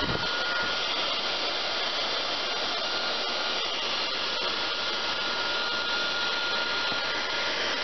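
Electric heat gun (paint-stripper gun) blowing steadily while shrinking red heat-shrink tubing onto a battery cable lug: a constant fan-and-air rush with a thin steady whine.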